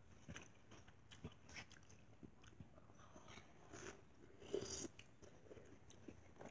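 Faint chewing and biting of watermelon chunks: scattered short mouth clicks, with a slightly louder burst about four and a half seconds in.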